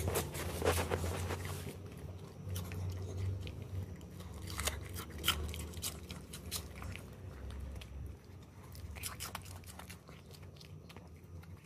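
A small dog chewing and crunching pieces of winter radish. The crunching is densest in the first two seconds, then comes again around five seconds in and around nine seconds in, over a low steady hum.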